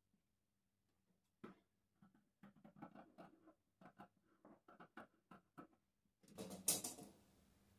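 Tailor's scissors snipping through folded fabric: a run of short cuts, about two or three a second. Near the end, a louder rustle of the cut fabric being slid across the table.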